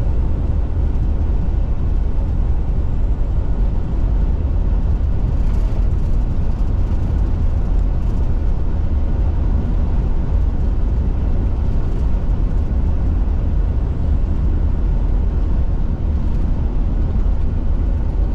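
Car driving, with a steady low rumble of engine and road noise.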